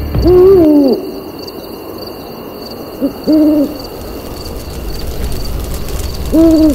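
An owl hooting three times, a few seconds apart: a longer hoot that rises and falls, a hoot with a short note just before it, and a third hoot near the end.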